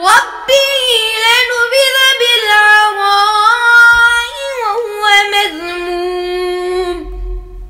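Melodic Quran recitation in a high, female-sounding voice: one long phrase of drawn-out notes gliding up and down, ending about seven seconds in.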